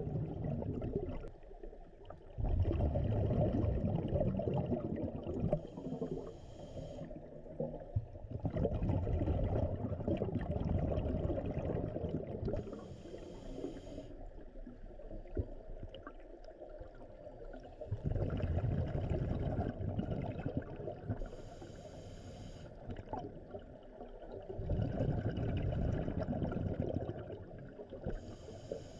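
Scuba diver breathing through a regulator underwater: a short hissing inhale and a longer low bubbling exhale, repeating about every seven seconds, four breaths in all.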